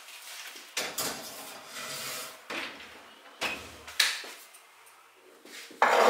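Ceramic baking dishes pushed onto an oven's wire racks, with several scrapes and knocks, then the oven door shutting with a sharp knock about four seconds in. Near the end comes a louder rough scraping noise lasting about a second.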